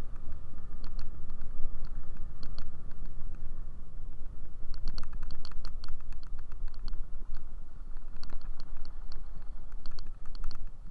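Wind buffeting the microphone of a moving scooter, with irregular light clicking and rattling, thickest about halfway through and again near the end.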